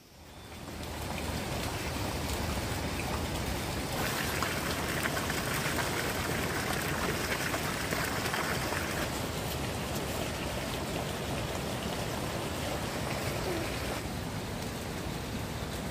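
Steady water noise with a fine pattering texture, like rain falling, fading in over the first second and holding steady.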